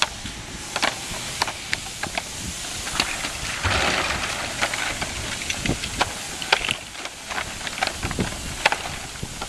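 Hard plastic EventDeck Ultra floor panels clicking, knocking and scraping on asphalt as they are lifted, carried and set down, over a steady outdoor hiss. A louder scraping rush comes about four seconds in.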